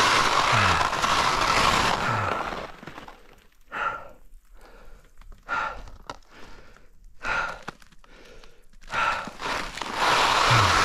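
Skis hissing and scraping over crusty snow for the first couple of seconds, then quiet with four short breaths about every second and a half, before the ski scraping starts again near the end.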